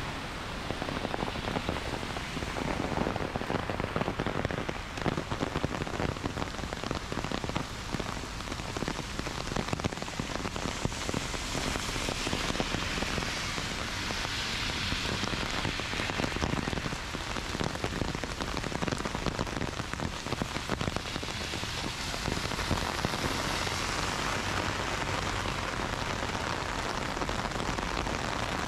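Heavy rain falling steadily: a dense hiss with many close drop hits, growing brighter a couple of times.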